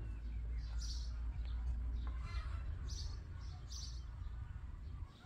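Small birds chirping a few times in short high calls, over a steady low rumble that stops near the end.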